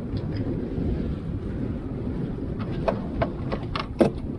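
Wind buffeting the microphone aboard a small boat at sea, a steady rumbling noise. About a second and a half before the end there is a run of sharp knocks and clicks, the loudest near the end.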